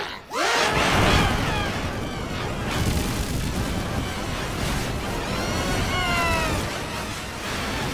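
Distorted, pitch-shifted animated-film soundtrack: a loud, long rumbling crash mixed with music, with a falling, wavering tone about six seconds in.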